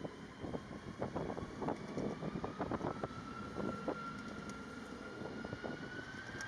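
Airbus A330-300 jet engines spooling up for the takeoff roll, a whine slowly rising in pitch, with strong wind buffeting the microphone in crackling gusts.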